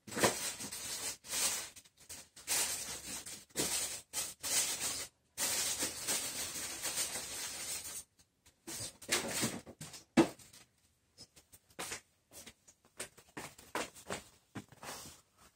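Irregular rustling and scraping noises from someone moving about and rummaging for eating utensils, busiest in the first half and sparser later, with a sharp knock about ten seconds in.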